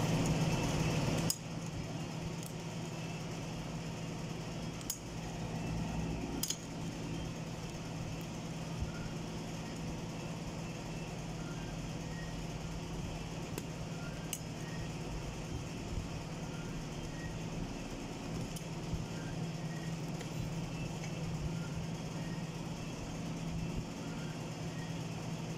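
Steady low machine hum, which drops in level about a second in, with a few sharp metallic clicks and taps from transmission clutch-drum parts being handled and fitted.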